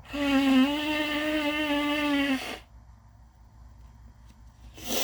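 A person blowing their nose in one long blow with a steady honking pitch, lasting about two and a half seconds, then a short sniff near the end.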